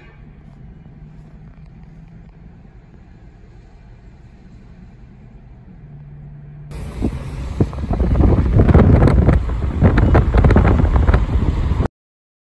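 A low, steady vehicle-engine hum. About seven seconds in it gives way to loud wind buffeting on the microphone that gusts and rumbles, then cuts off suddenly near the end.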